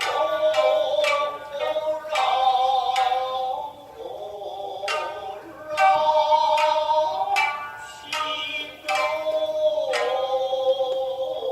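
Background music: a melody with a synthetic, voice-like lead over sharp percussive hits.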